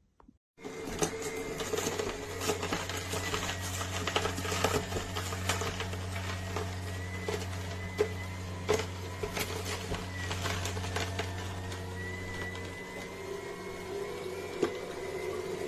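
Cold-press slow juicer running: a steady low motor hum with irregular sharp cracks and clicks as produce is pressed, starting abruptly.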